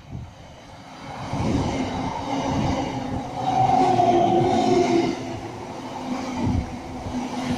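An electric multiple-unit passenger train comes in along the platform and runs close past, growing loud about a second in, with wheels knocking over rail joints. A steady whine sits on top about halfway through.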